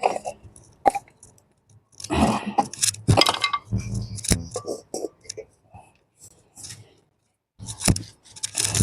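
Dishes and kitchen utensils clinking and knocking as cooking ingredients are handled, in irregular clusters of sharp clinks and rustles with a short lull past the middle.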